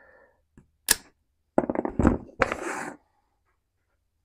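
Hand tools and parts handled at a cardboard parts box: a sharp click about a second in, then a quick run of clicks and knocks and a rustling scrape around two seconds in.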